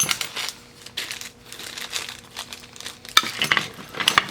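Small metal sewing machine parts clinking and rattling against each other as they are handled and sorted, in quick clusters of clicks at the start and again near the end.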